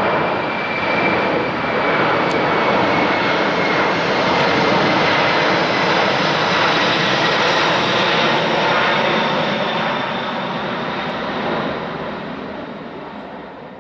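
Four turbofan jet engines of a Boeing C-17A Globemaster III making a loud, steady roar with a thin whine that slowly drops in pitch as the aircraft passes. The roar fades away over the last few seconds.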